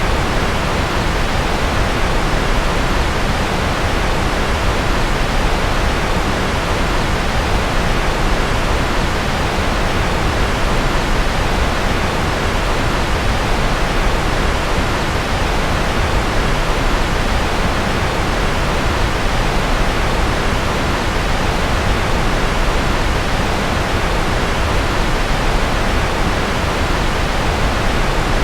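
Steady, unchanging rushing noise from a white-noise sleep track styled as rocket engine noise, heavy in the low end.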